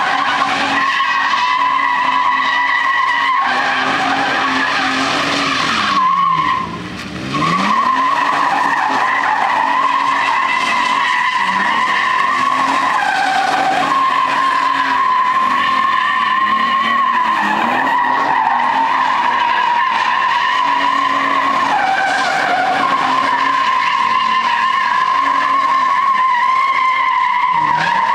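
Toyota Tacoma X-Runner's 4.0-litre V6 held at high revs while its rear tyres squeal through continuous donuts, a steady high squeal that wavers slightly in pitch. About six and a half seconds in the squeal breaks off for about a second as the engine note drops and then climbs back up, and the squeal resumes.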